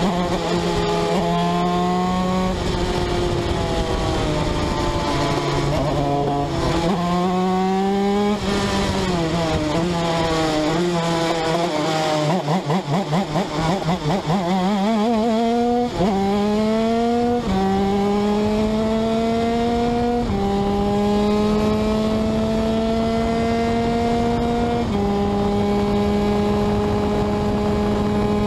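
125cc TM shifter kart's two-stroke engine heard from onboard at racing speed. Its revs fall low and waver in the middle, pick up sharply, then climb through three upshifts, each a drop in pitch followed by a steady rise.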